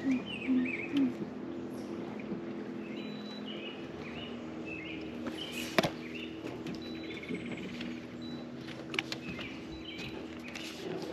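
Small birds chirping again and again over a low, steady hum, with one sharp click about six seconds in.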